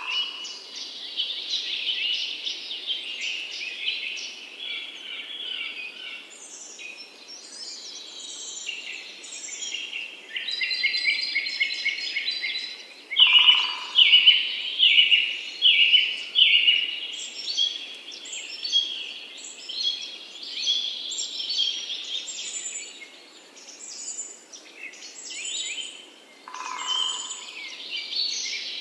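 A chorus of many birds chirping and singing, high-pitched and overlapping, with a louder run of repeated calls about halfway through and a lower single note twice.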